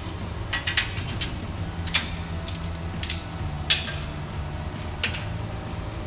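Sharp metallic clinks and clicks, about half a dozen spread over a few seconds, as clamps and locking pliers are released and a tack-welded aluminium bike frame is handled in a steel welding jig.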